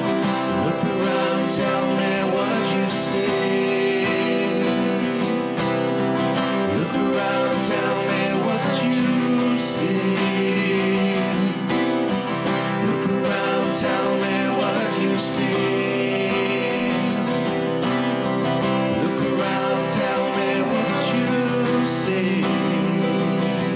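Two acoustic guitars, one a Crafter, strummed together in an acoustic duo song, with a man singing.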